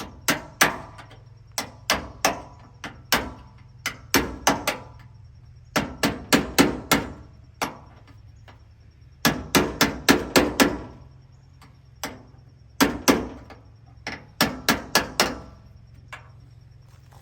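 Hammer tapping on a bolt used as a drift, driving a door-lock retainer home in a truck door: rapid metal-on-metal blows in bursts of three to six, with short pauses between bursts.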